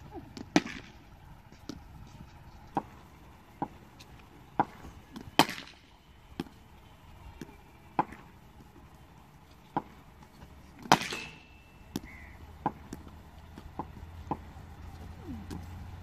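Taped tennis ball and cricket bat in the nets: a string of sharp knocks and cracks, the loudest about half a second in, at about five seconds and at about eleven seconds.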